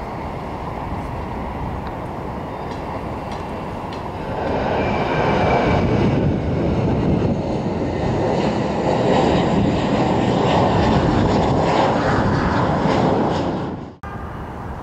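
Jet airliner engines running, a steady noise that grows clearly louder about four seconds in and holds there, then cuts off abruptly near the end.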